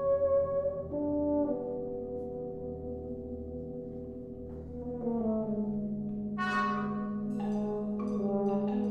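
Brass band playing sustained chords that shift about a second in and soften toward the middle, then swell again with a new low note about five seconds in and a brighter, fuller chord a moment later.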